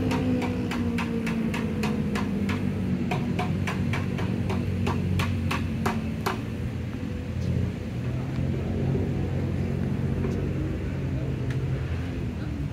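Rapid, even knocking, about three strikes a second, struck as a signal to call the restaurant staff; it stops about six seconds in. A low droning hum runs underneath.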